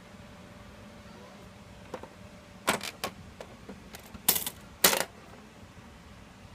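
Brother AX-12 electronic daisy-wheel typewriter working: an uneven run of sharp clicks and short clatters, the two loudest and longest about half a second apart a little past the middle, over a faint steady hum.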